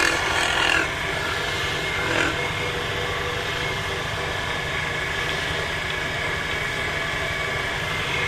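Wood lathe running steadily with a mahogany mortar spinning on it. Short scrapes of a hand tool against the turning wood come in the first second and again about two seconds in.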